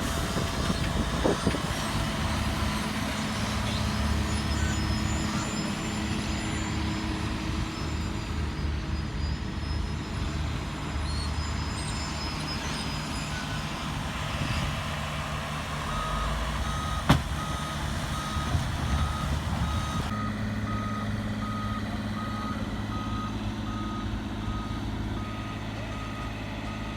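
Heavy paving equipment engine running steadily. A little past halfway a backup alarm starts beeping at an even pace, and there is one sharp knock shortly after it starts.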